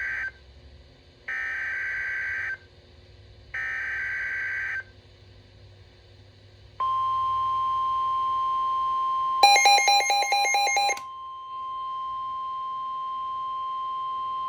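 NOAA Weather Radio Emergency Alert System activation for a severe thunderstorm warning. It opens with the end of the first SAME header burst, then two more short bursts of warbling digital data tones. About seven seconds in the steady 1050 Hz Warning Alarm Tone begins and runs on; for about a second and a half near its middle a louder, rapidly pulsing beep sounds over it.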